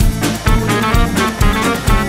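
Background music with a steady beat, about two beats a second, and sustained instrumental notes over it.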